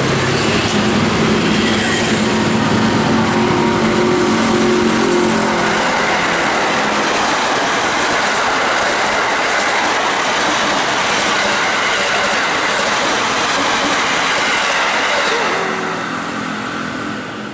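Train running close by: a loud, steady rumble of wheels and locomotive, with a low steady tone in the first few seconds, fading out near the end.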